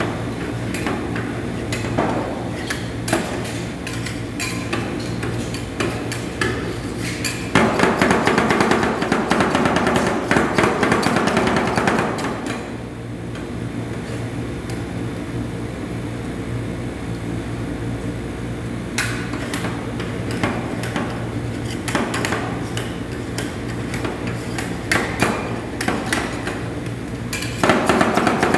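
Metal spatulas chopping and scraping on the steel cold plate of a rolled ice cream machine, working fruit into the freezing cream base: quick runs of sharp taps, densest and loudest about a third of the way in and again near the end, thinner in between. A steady low hum lies under them.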